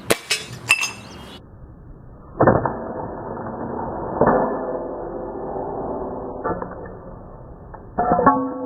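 Two sharp cracks about half a second apart, typical of the NX100 Polaris air rifle being fired. From about two seconds in, plucked-string music with strummed chords follows.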